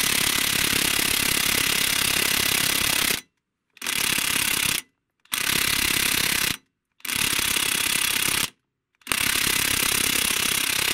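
Cordless impact driver hammering through a long-reach socket and extension on a bolt inside a lorry wheel hub, trying to break loose a rusted, oil-soaked bolt that it has struggled with. It runs in five bursts, a long first one of about three seconds, then four shorter ones with short pauses between.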